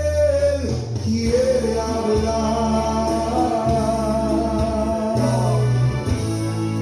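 Gospel song with a singer holding long notes over guitar accompaniment, the low notes underneath changing every second or two.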